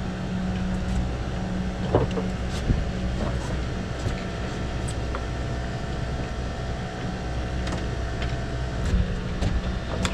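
Boat's outboard motor idling with a steady low hum, with a few short knocks and clicks scattered over it.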